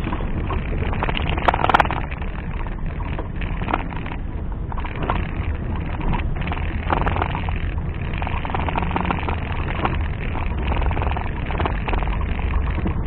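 A vehicle engine running steadily, with irregular knocks and rattles and one sharp, loud knock about one and a half seconds in.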